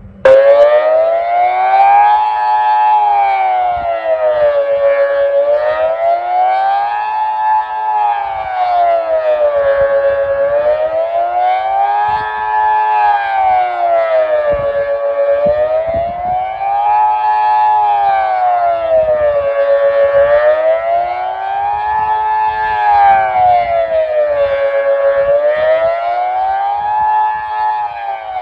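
Kockum Sonics Delta 4 electronic civil-defence siren, driven by its original grey Delta control unit, sounding the Swiss general alarm: a rough, raspy tone rising and falling about every four and a half seconds. It starts abruptly right at the beginning, and wind buffets the microphone underneath.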